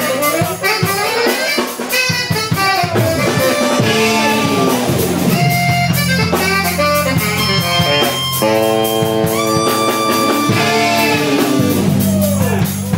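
Live band playing an instrumental groove: drums, a steady bass line, and a lead melody with sliding notes.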